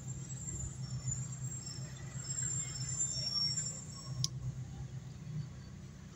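Steady low hum of an engine running, with a single sharp click about four seconds in.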